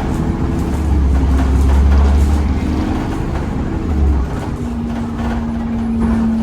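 Temsa Avenue LF 12 city bus with a DAF Euro 5 diesel and ZF gearbox under way. A low engine drone with shifting tones drops off about four seconds in and gives way to a steady whine as the bus comes off the throttle.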